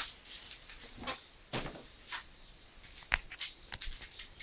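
Plastic bag crinkling and rustling in irregular short bursts as a cat plays with it, with a sharper crackle about three seconds in.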